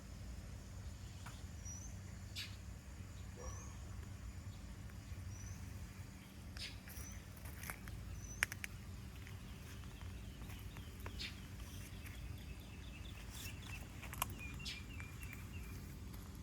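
Garden ambience: a small bird gives a short, high, rising chirp every couple of seconds, with a quick run of chirps near the end, over a steady low hum and a few sharp clicks.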